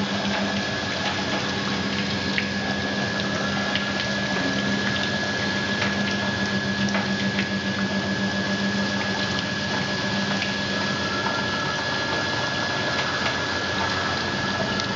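Sciaky resistance seam welding machine working a stainless steel sink rim under its copper wheel electrode, with cooling water running over the weld: steady running water and a low machine hum, with a thin steady high tone and scattered faint ticks. The hum is stronger in the first eleven seconds or so.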